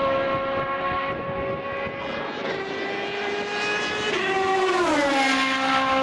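Rebellion Lola B12/60 LMP1 racing prototype's Toyota 3.4-litre V8 running at high revs on track. Its pitch drops a little about two seconds in, then falls steeply between about four and five seconds in and settles lower.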